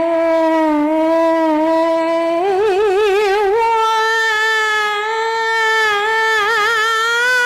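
A woman's voice singing long held notes into a microphone, stepping up in pitch about two and a half seconds in and wavering with vibrato: the drawn-out closing phrase of a Mandarin pop ballad.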